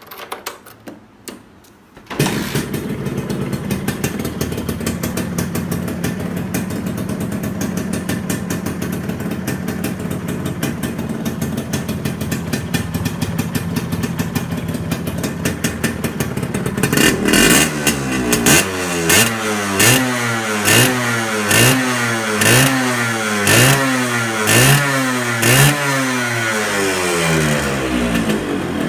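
Suzuki Xipo's two-stroke single-cylinder engine starting about two seconds in, then running at a steady idle. Over roughly the last third it is blipped about ten times in quick succession, each rev rising and falling in pitch.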